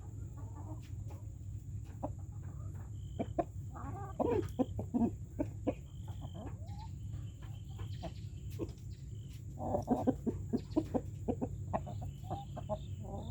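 Chickens clucking, with louder runs of clucks about four seconds in and again around ten seconds, over a steady low background hum.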